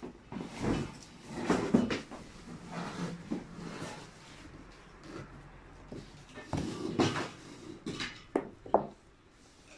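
Irregular knocks, clatter and rustling of things handled on and around a table, among them a cardboard pastry box of baklava being opened.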